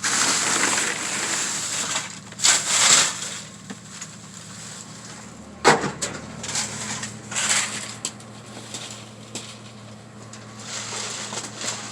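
Crinkling and rustling in bursts as trash and bags are rummaged through and handled, with one sharp knock about halfway through.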